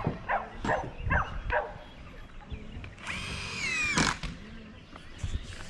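A dog barks four times. About three seconds in, a power drill runs for about a second with a high whine, its pitch falling as it winds down.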